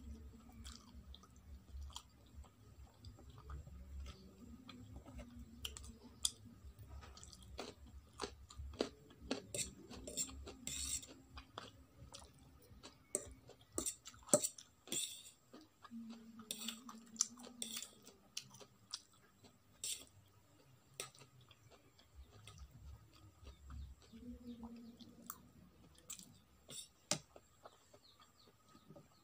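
Close-miked wet chewing and slurping of Maggi instant noodles, with many small sharp mouth clicks.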